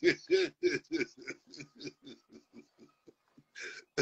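A man laughing hard: a rapid string of short 'ha' pulses, about five a second, that fade away, then a sharp breath drawn in near the end as the laughter starts up again.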